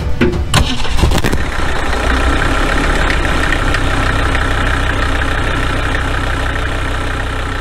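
Turbocharged truck engine cranking and catching on a portable jump starter about a second in, then running steadily at idle.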